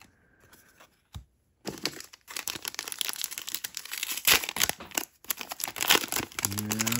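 Trading-card wrappers being torn open and crinkled by hand: a single thump, then from about a second and a half in a dense, loud crackling with sharp snaps.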